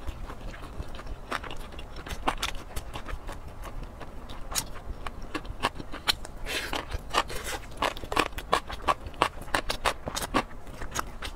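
Close-miked eating: wet chewing and smacking of soft braised meat, with many short sharp clicks and a spoon scraping against a glass bowl as she scoops.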